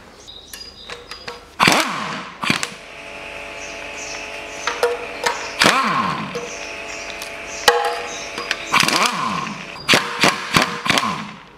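Ratchet wrench with an extension and socket undoing bolts on an engine's oil pan: ratchet clicking with several sharp metallic clinks, each followed by a short ringing tone, the first about two seconds in and more near six, eight and ten seconds.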